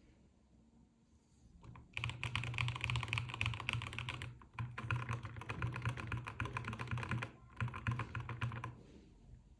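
Fast typing on a mechanical keyboard fitted with Gateron Pro 2 Yellow and Magic Refiner Jelly Yellow switches: a dense run of key clacks starting about two seconds in, with two brief pauses, stopping a little before the end.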